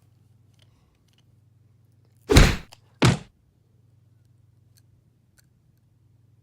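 Two loud thumps about two-thirds of a second apart, the first a little longer and louder, over a faint steady low hum.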